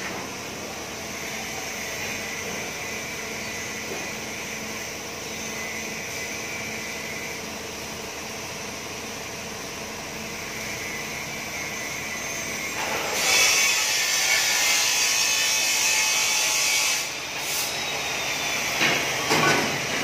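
Steady workshop machinery noise in a steel-frame bus body-building shop. A power tool's loud hiss sets in past the middle and stops about four seconds later, and two sharp knocks come near the end.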